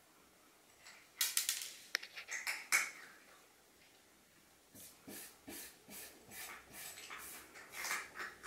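Orange tabby cat scratching with its paws at the door and laminate floor in short scraping strokes: a quick flurry about a second in, then a steady run of strokes, two or three a second, in the second half. It is the burying motion a cat makes over food it refuses.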